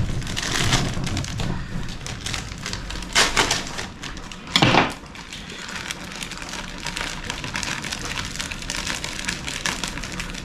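Plastic bag of flour crinkling and rustling as it is handled and tipped to pour flour into a plastic bowl, with two louder rustles about three and five seconds in.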